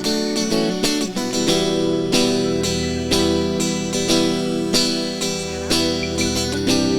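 Live forró band playing an instrumental guitar solo over bass and drums.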